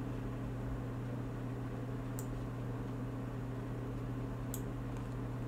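Quiet room tone with a steady low hum, broken by two faint computer-mouse clicks, about two seconds in and again near the end.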